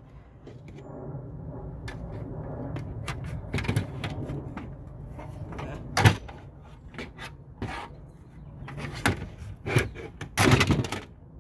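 Plastic parts of a printer being pried, snapped and knocked about as it is taken apart by hand: irregular sharp clicks and knocks, the loudest about six seconds in and several more near the end, over a steady low hum.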